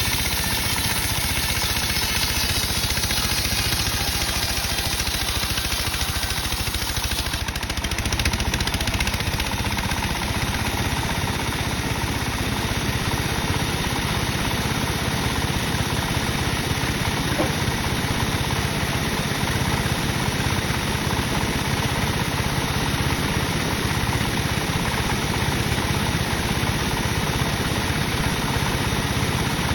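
Sawmill machinery running steadily with a constant mechanical drone; the higher part of the sound shifts slightly about seven seconds in.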